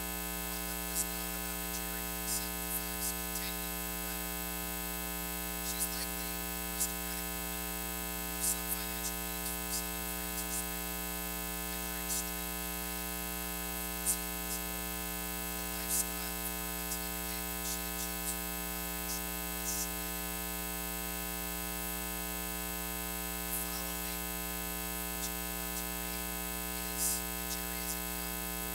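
Steady electrical mains hum and buzz with many overtones, dotted with irregular small clicks and crackles. No voice comes through it.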